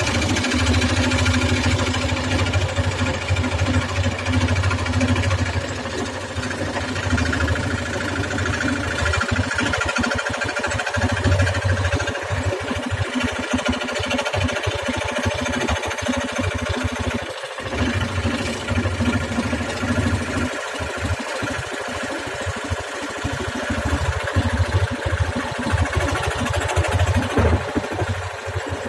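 Electric jigsaw running steadily, its reciprocating blade cutting through wood. The low rumble turns choppy and uneven from about a third of the way in.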